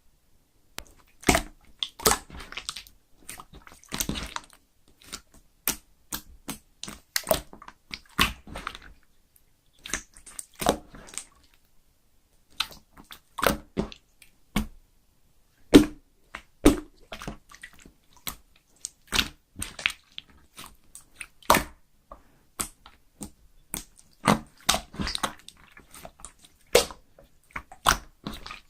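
Clear slime being squeezed and pressed by hand, giving irregular sticky clicks and pops with brief pauses between handfuls.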